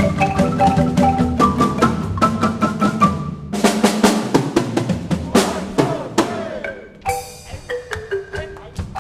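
Background music: a quick, steady beat of drums and percussion with short mallet-like pitched notes, getting quieter and sparser about seven seconds in.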